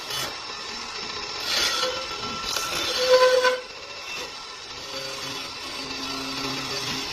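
Hissing cutting noise of a CNC woodworking lathe's tools turning a wooden furniture leg, swelling twice, under background music with held tones.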